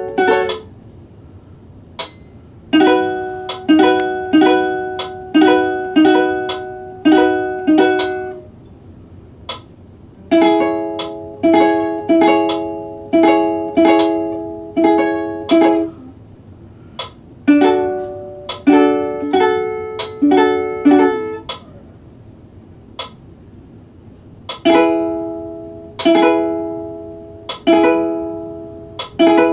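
Ukulele chords strummed in short runs of several strums each, with pauses of a second or two between runs while chords are practised from sheet music.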